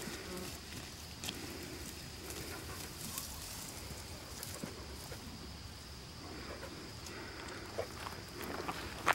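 Faint rustles and light clicks of movement through tall dry grass, over a steady faint high-pitched hum.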